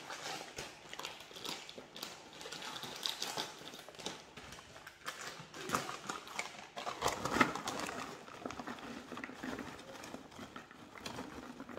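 Plastic snack bag crinkling and rustling as it is pulled open with both hands, then puffed corn snack balls spilling out of it and rattling onto a bowl of chips, with a few louder crisp crackles in the middle.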